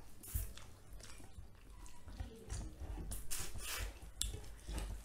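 People eating with their hands: chewing, lip smacking, and fingers working rice on metal plates, as scattered short wet sounds.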